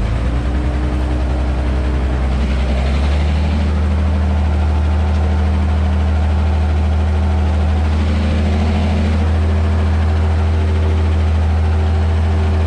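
Ursus 1214 tractor's six-cylinder turbo diesel engine running steadily under load while pulling a plough through the soil, heard from inside the cab. About three seconds in, the engine note shifts and grows slightly louder.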